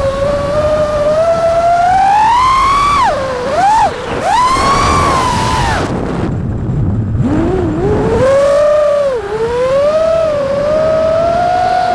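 Brushless motors of an FPV freestyle quadcopter (Botgrinder V4 1750kv motors on Bluejay ESC firmware) whining, the pitch gliding up and down with the throttle over a rush of air. About six seconds in the throttle is chopped: the whine sinks low and the high part falls quiet, then it climbs again as power comes back.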